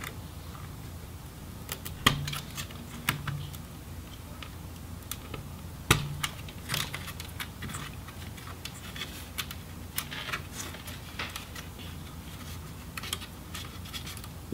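Scattered small clicks and taps of fingers unplugging cable connectors from a laptop motherboard in its plastic bottom case, with two sharper clicks about two and six seconds in.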